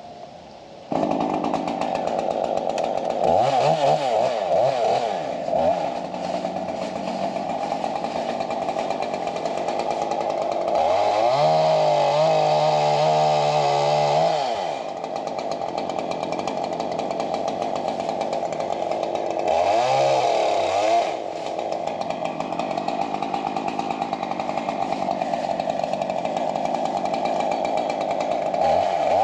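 Stihl MS 201 TC top-handle two-stroke chainsaw starting about a second in and running, revved up to full throttle and dropped back several times while bucking a small broken-off scrub tree.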